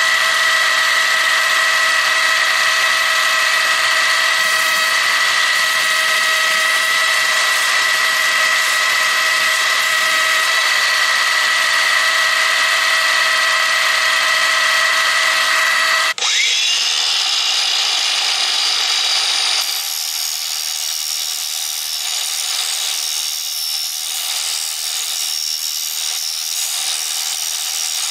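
A power tool's motor running steadily with a high whine. About halfway through it cuts off sharply and a different, quieter power-tool sound runs on.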